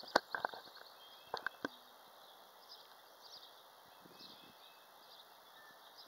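Quiet outdoor ambience with a handful of sharp taps in the first two seconds and faint, scattered high chirps.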